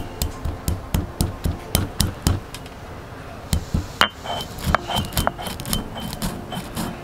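Stone roller knocking and crushing black peppercorns on a flat stone grinding slab: a quick run of knocks, about four a second, over the first two and a half seconds, then after a short pause more irregular knocks and grinding scrapes.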